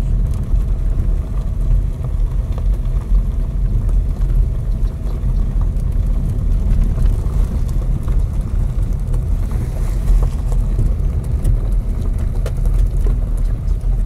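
Car engine and tyres on a gravel road, heard from inside the cabin: a steady low rumble with a few faint scattered clicks.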